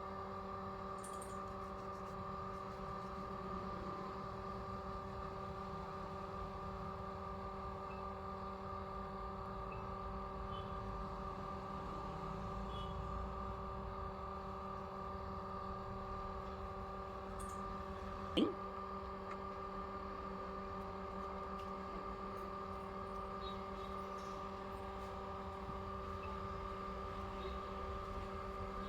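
Steady electrical hum from mains-powered equipment, a set of even tones that does not change, with a single sharp click about two-thirds of the way through.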